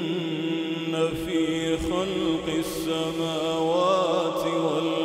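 A man's voice reciting the Quran in the melodic tajwid style, drawing one syllable out into a long held note whose melody wavers and turns.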